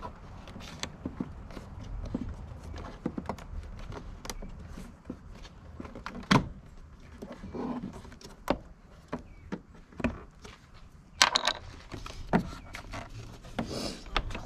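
Hard plastic engine-bay cover and airbox parts being unclipped and handled by hand: a string of light clicks and knocks, with a few louder snaps about halfway through and later on.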